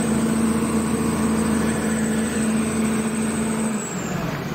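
Volvo 290 excavator's diesel engine running steadily with a hum and a high whine, which fall away near the end. The engine runs and holds revs but the machine won't move, a fault traced to a stuck solenoid.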